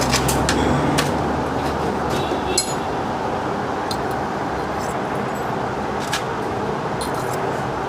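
Steady mechanical drone with a few light metallic clinks, like hand tools on metal parts in a workshop.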